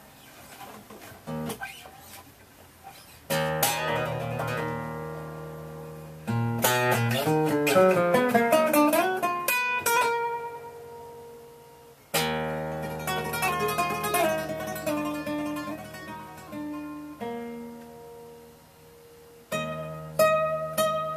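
Solo nylon-string classical guitar played fingerstyle. A few quiet notes come first, then full chords are struck about three seconds in, again near the middle and once more near the end, each left to ring and fade, with quick runs of single notes between them.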